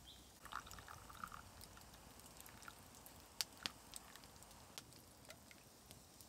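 Coffee being poured faintly into a bamboo cup, with a few light clicks and knocks.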